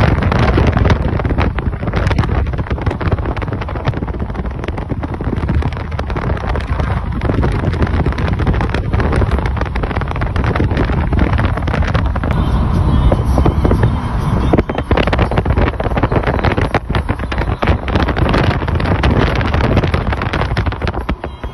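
Wind buffeting the microphone in uneven gusts over the rumble of road noise from a moving car, heard from inside the car.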